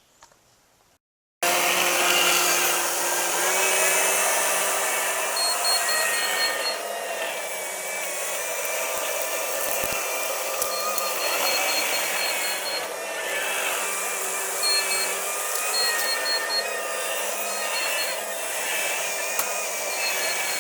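Takeuchi machine's diesel engine and hydraulics running under load with a whine that wanders in pitch, starting abruptly just over a second in. Short runs of a high beeping come in several times.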